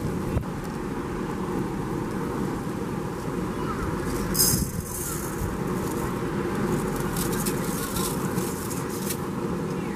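Steady noisy rumble of the pan cooking on the gas grill. A short hiss about four seconds in, then a light hiss and patter later on as dry Arborio rice is poured from a plastic measuring cup into the paella pan.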